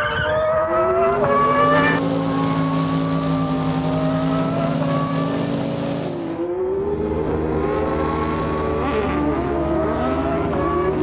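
Race-car engine sound effects: several engines revving together, their pitches climbing, falling and crossing over each other. About six seconds in the pitch drops and then builds again.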